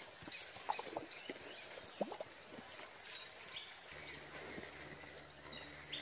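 A bird chirping over and over, short high falling calls about three a second at first and then more sparsely, with a few soft knocks. A faint low hum joins near the end.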